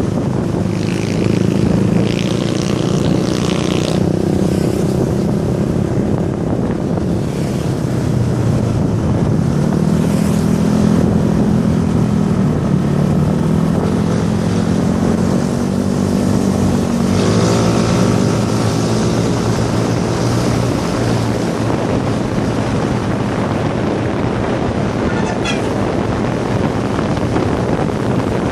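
A vehicle engine running steadily under wind rumble, its pitch shifting with speed and rising sharply about 17 seconds in as it speeds up.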